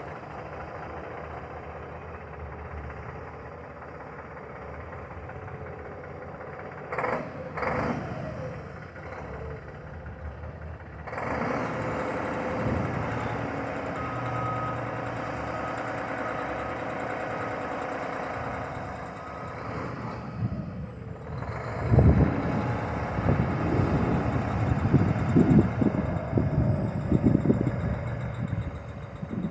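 Semi truck's diesel engine running steadily, then louder from about eleven seconds in as the truck pulls away, with loud irregular rumbling and thumps in the last several seconds.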